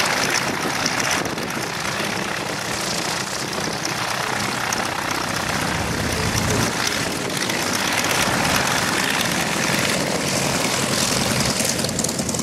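Grumman FM-2 Wildcat's Wright R-1820 nine-cylinder radial engine running steadily as the fighter taxis, propeller turning.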